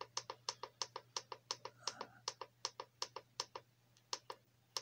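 Rapid, even clicks, about five a second, from the Icom IC-M803 marine radio's front-panel controls as its DSC address list is stepped through one entry per click. The clicks pause briefly about three and a half seconds in, then resume.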